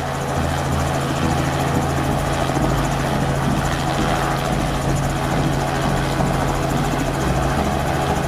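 Robinson R44 Raven II helicopter running on the pad, its six-cylinder Lycoming piston engine and turning main rotor making a steady low drone with a broad hiss over it, before liftoff.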